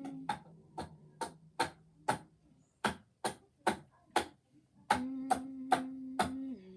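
A steady beat of sharp clicks, about two and a half a second, with a low held note joining about five seconds in and stepping down in pitch near the end.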